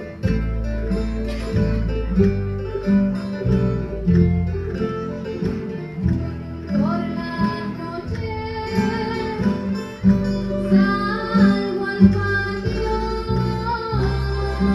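Canarian folk music playing for a dance: strummed and plucked guitars over a steady bass line, with a voice singing from about seven seconds in.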